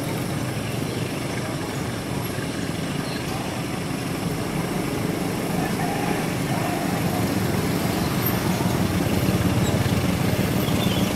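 Diesel locomotive engine running as the train approaches, a steady low hum that slowly grows louder toward the end.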